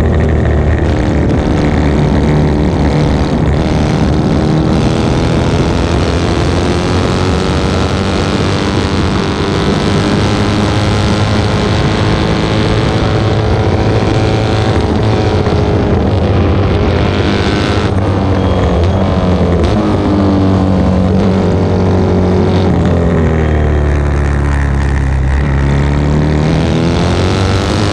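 1972 short-stroke Norton 750 Commando parallel-twin engine at racing revs, heard from on board, its pitch climbing and falling with the throttle, dropping low and climbing again near the end. Wind noise runs underneath.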